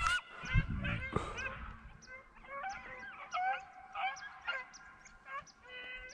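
Beagles baying in short, repeated, fairly faint bawls, several voices overlapping: hounds giving tongue while running a rabbit. A few low handling thumps come in the first second.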